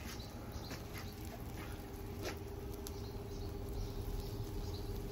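Faint, irregular crackles and ticks of pallet wood burning in a wood-fired boiler, with a steady hum that starts about two seconds in.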